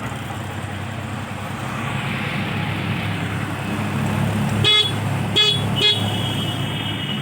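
A motorcycle engine idling steadily, with three short beeps of an electric vehicle horn about two-thirds of the way through.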